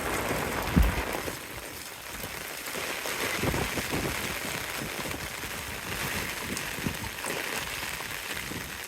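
Heavy rain falling in a steady hiss, with a sharp low thump a little under a second in and softer low bumps scattered after it.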